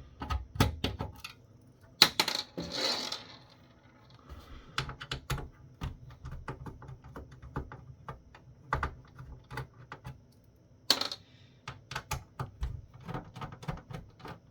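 Irregular small clicks and ticks of a screwdriver taking screws out of an electronics unit. There are louder ringing metal clinks about two seconds in and again about eleven seconds in.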